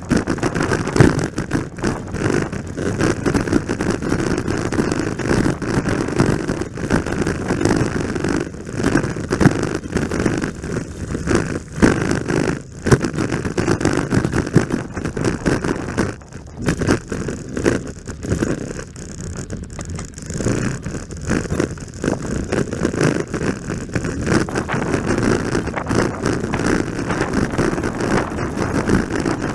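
Wind buffeting the microphone of camera sunglasses worn while riding an electric scooter at speed: a loud, uneven low rumble that sounds like a V8 engine, dipping briefly about twelve and sixteen seconds in.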